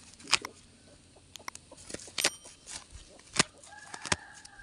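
Feathers being torn out by hand from a slaughtered country chicken: irregular short sharp snaps and rustles as tufts are pulled from the skin.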